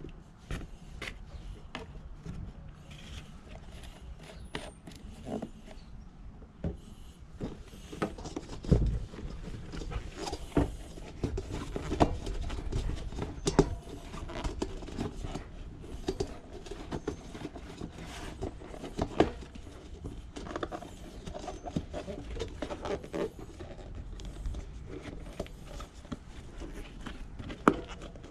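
Irregular clicks, knocks and rubbing from hands working a tubeless mountain-bike tire and rim, with a sharper knock every few seconds.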